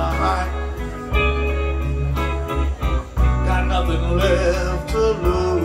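Live blues band playing an instrumental passage: electric guitar carrying bent, wavering notes over bass, drums and keyboard.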